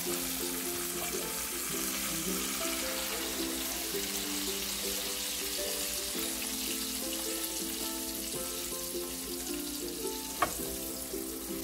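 Meat juices and fat sizzling steadily in a hot roasting pan around a roast beef, with background music playing. One sharp tap comes about ten and a half seconds in.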